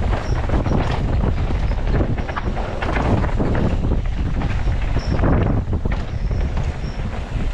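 Wind buffeting the microphone as a mountain bike descends fast over a rocky dirt trail, with a continuous low rumble and constant clatter of the tyres and bike over stones and roots.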